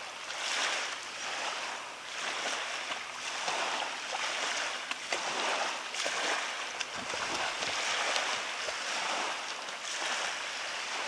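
Small waves washing in the shallows of a beach, the noise swelling and falling every second or two, with light splashing from children moving in the water.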